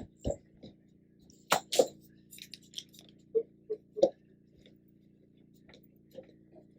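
Scattered light clinks and knocks of spice containers and cooking utensils being handled while seasonings go into the chili, the loudest pair about a second and a half in, over a faint steady hum.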